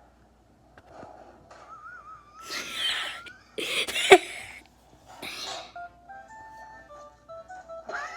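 Wheezing laughter: a thin, wavering whistle-like wheeze, then three loud breathy wheezing gasps. A few short stepped notes follow near the end.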